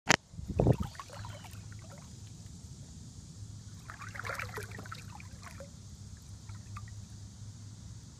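Pool water splashing and trickling around a floating LEGO model ship, in small bursts, over a steady low hum. A sharp click and a low thump come just at the start.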